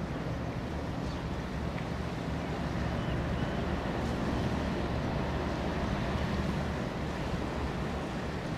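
Steady low rumble of wind on the microphone and open sea, with a faint steady hum from the Type 23 frigate HMS Montrose's machinery as she heads out.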